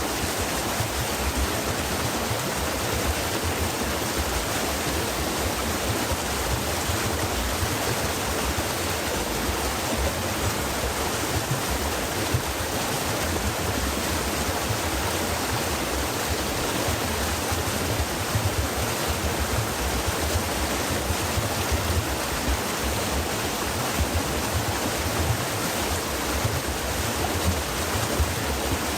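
Stream water running steadily over rocks, a continuous rushing with no breaks.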